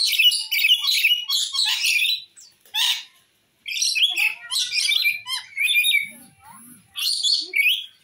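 Caged lory calling: bursts of shrill, rapid chattering and screeching notes, broken by short pauses, with several separate bouts of calls.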